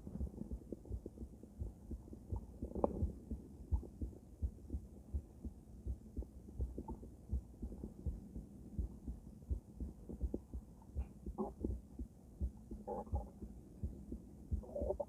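A woman's heartbeat heard through a stethoscope with a microphone: a steady, even run of low lub-dub beats.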